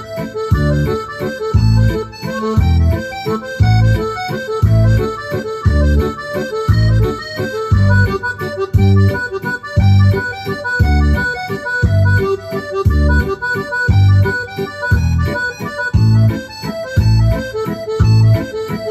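Yamaha DGX670 digital piano playing a French musette waltz on its accordion voice, with its built-in accordion-waltz rhythm: a bass note on the first beat of each bar, about once a second, with chords and light drums between, under the accordion melody.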